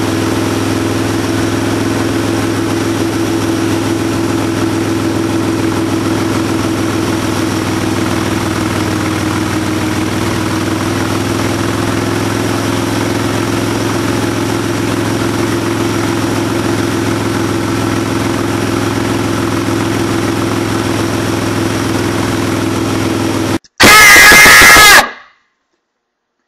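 Motorcycle engine running steadily at a constant cruising speed. Near the end it cuts off abruptly, and a very loud, shrill sound lasting about a second and a half takes its place.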